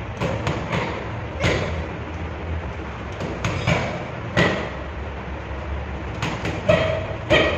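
Boxing gloves striking focus mitts: sharp slaps in quick clusters of two or three, about a dozen in all, the loudest pair near the end.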